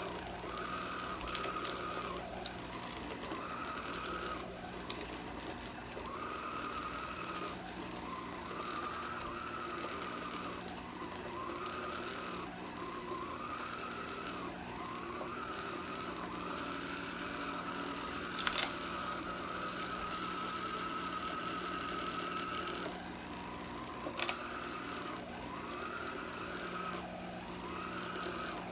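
Black and Decker 4.8 V cordless Dustbuster stick sweeper's small battery motor running with a high whine. The whine repeatedly dips in pitch and recovers, about every second or two, as the head is pushed back and forth over carpet. There are a couple of sharp clicks partway through.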